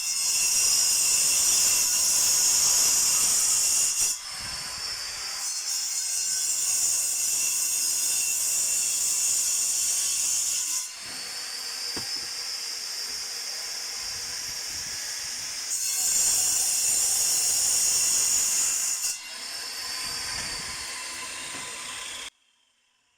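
Steady high-pitched hiss in several stretches, each stopping and starting abruptly at a different level, cutting off suddenly near the end.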